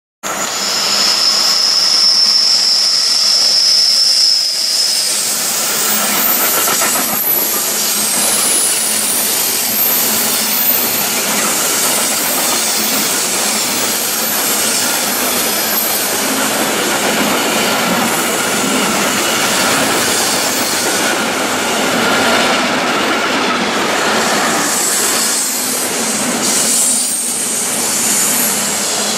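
Intermodal freight train of pocket wagons carrying lorry trailers rolling past at close range with a steady rumble and clatter of wheels on rail. A high, steady wheel squeal runs through the first few seconds, and fainter squeals come and go later.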